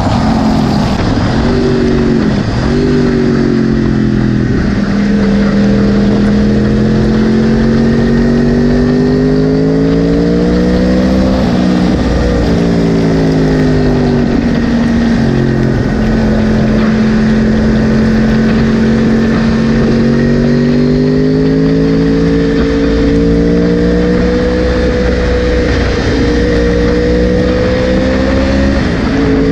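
A 2010 Yamaha R1's crossplane inline-four engine under way, heard from on board. The revs climb steadily, drop sharply about eleven seconds in, hold steady for a stretch, then climb again toward the end.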